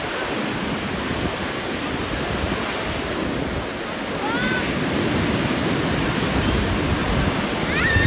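Small waves breaking and washing up on a sandy beach: a steady rush of surf, swelling a little after the middle. A few brief high voice calls from people in the water come about four seconds in and again at the end.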